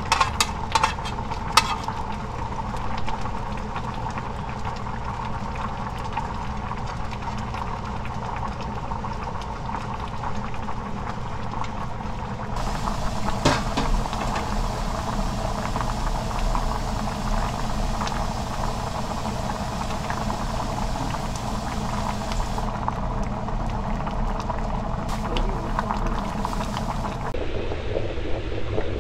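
Spicy braising sauce of a fish jorim boiling in a pot, a steady bubbling crackle that grows a little louder about halfway through. A few light clinks of a spoon on a plate in the first couple of seconds.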